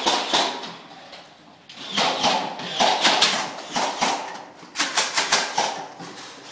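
An irregular run of sharp clacks and knocks in clusters, from foam-dart blasters being fired in a hallway.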